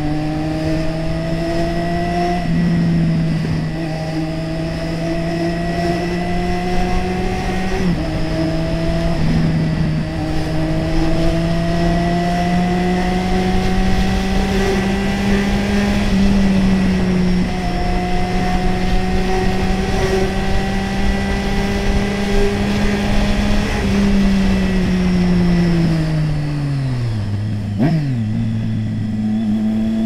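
Triumph Street Triple 675R's 675 cc inline three-cylinder engine running under way. Its pitch climbs slowly with a few short breaks, then falls steadily as the bike slows near the end, jumps briefly, and starts rising again.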